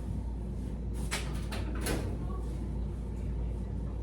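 A few brief handling noises, three or four in quick succession about a second in, over a steady low hum.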